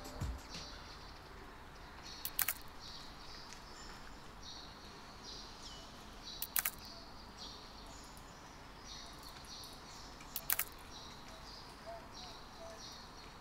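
A camera shutter clicking as each selfie is taken, a quick double click about every four seconds, three times, over faint outdoor ambience with short high chirps repeating throughout.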